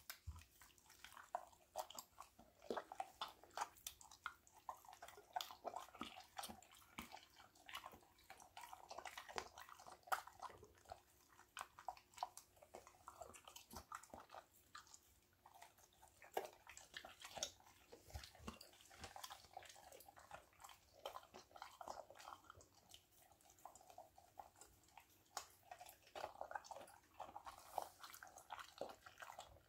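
German Shepherd chewing raw game meat from a stainless steel bowl, a quiet run of irregular wet chewing and biting with many quick clicks throughout.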